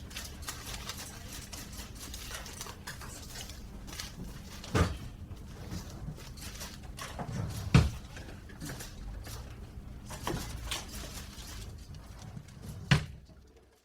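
Office room ambience: a steady low hum with scattered knocks and clatters from desk work, a few of them louder, fading out near the end.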